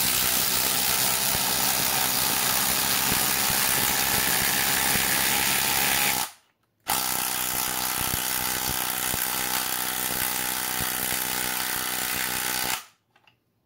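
Two cordless brushless impact tools hammering at once, loud: a DeWalt DCF902 12 V ⅜-inch impact wrench and a DeWalt DCF887 impact driver, each driving a bolt into wood. They run for about six seconds, stop briefly, then run about six seconds more before stopping.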